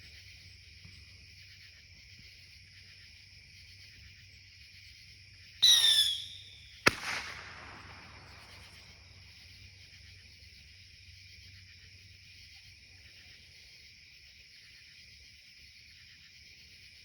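A firework going off: a short whistle that bends downward in pitch, then a sharp bang a little over a second later that trails off. Crickets chirp steadily underneath.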